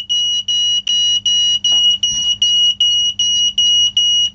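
Optical smoke alarm's piezo sounder beeping its alarm, a high-pitched tone pulsed about three times a second, which cuts off abruptly near the end. The alarm has been set off by light reflected off the unit's own piezo disc held over the opened optical sensing chamber.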